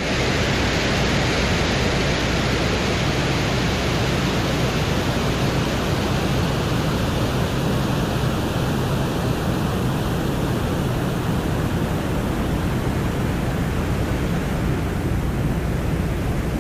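Steady rushing hiss with a low hum underneath, like wind: a space recording converted into sound.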